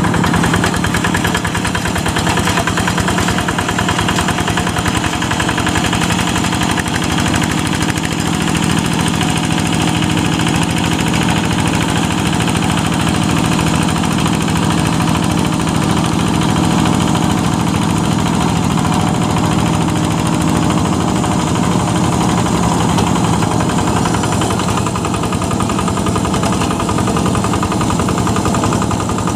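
Yanmar single-cylinder diesel engine of a G1000 hand tractor running steadily with a rapid, even knock while it pulls a plough through wet paddy mud.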